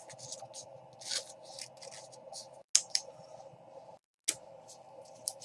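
Trading cards being handled: short scratching and sliding strokes of card stock, with a couple of sharper clicks, over a faint steady hum.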